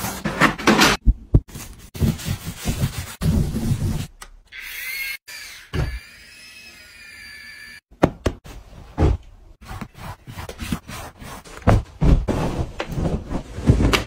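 Irregular knocks, taps and rubbing from hands cleaning and handling things, with a wavering high-pitched sound in the middle.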